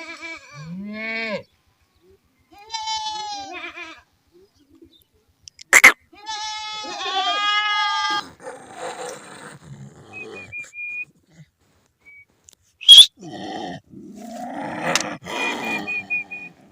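Goats bleating: several wavering calls one after another, then rougher, noisier sound. Two sudden sharp clicks, about six seconds in and again near thirteen seconds, are the loudest sounds.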